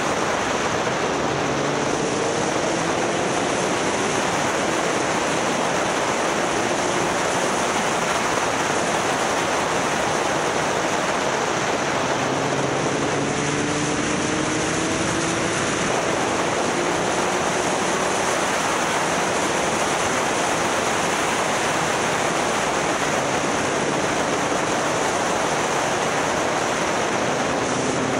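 Motorcycle on the move, with heavy wind rush over the microphone. The engine sounds faintly underneath, its note rising several times as it pulls through the gears.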